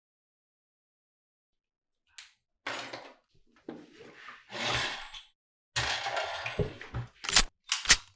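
A run of separate short foley effects after two seconds of silence: a click, rustling and scraping noises, a few dull knocks, then two sharp, loud impacts near the end.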